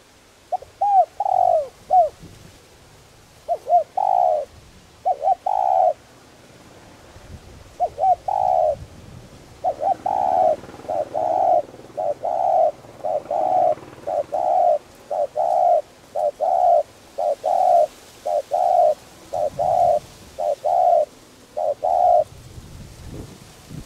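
Spotted dove cooing: a few short groups of two or three coos, then after a pause a fast, even run of coos, roughly two a second, that stops near the end.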